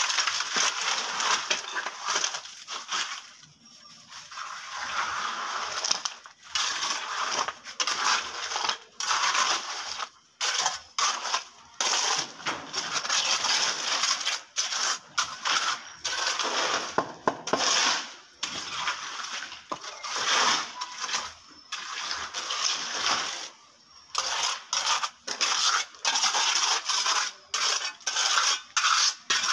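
A trowel and a hand float scraping and rubbing over a wet cement surface as it is smoothed. The gritty strokes come one after another, with short breaks between them.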